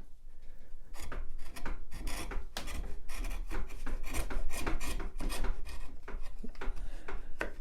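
Hand chisel paring pallet wood: a quick, uneven run of short scraping strokes as the blade shaves thin pieces from the cut to bring it parallel to the marked line.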